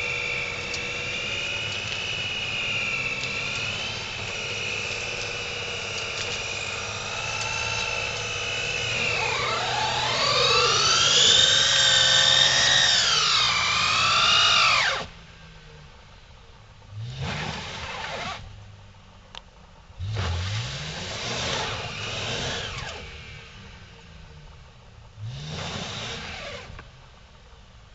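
Lincoln LS stuck on ice, its engine held at high revs with the driven wheels spinning: a steady whine that swings up and down in pitch, grows loudest about halfway through, then cuts off suddenly. After that, three short revs of the engine, each rising in pitch.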